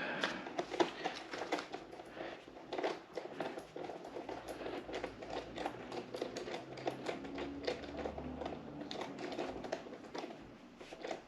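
Many small, irregular clicks, taps and rattles of hands and tools working on a sport motorcycle's tail-section parts.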